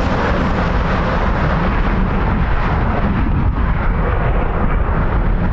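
Jet airliner engines running loud and steady: a broad rushing noise over a deep rumble.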